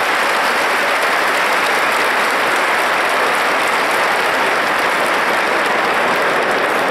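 Large stadium crowd of football supporters clapping and cheering, a steady loud din with no breaks.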